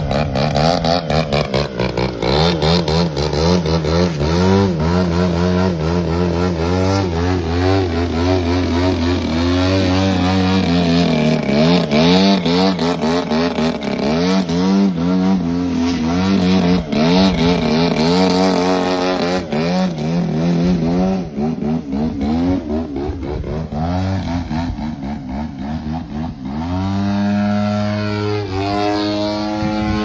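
Model aerobatic plane's motor and propeller running hard, the pitch rising and falling with the throttle as it flies aerobatic manoeuvres and hangs on its propeller; about 27 seconds in it settles to a steadier note.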